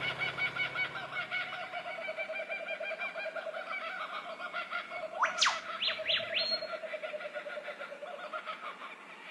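Birds calling: a rapid pulsing trill throughout, with a few quick rising whistles a little past the middle, fading out near the end.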